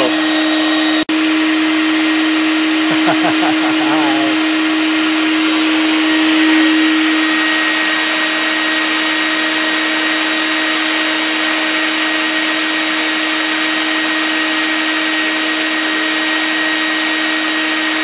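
Bee vacuum's motor running steadily with a constant high hum, sucking honey bees off the comb. The sound cuts out for an instant about a second in.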